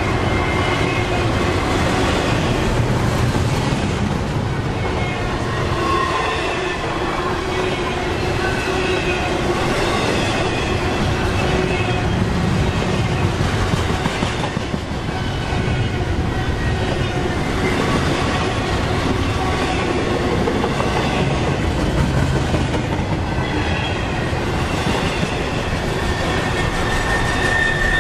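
Double-stack intermodal freight cars rolling past close by: a steady rumble and clatter of steel wheels on the rails, with a thin high wheel squeal that grows louder near the end.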